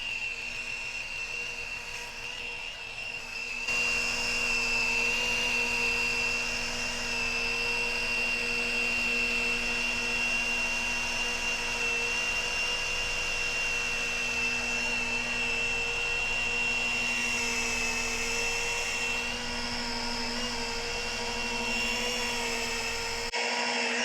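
Flex rotary polisher running at low speed on window glass, a steady motor whine over the hiss of the pad on the glass, stepping louder about four seconds in.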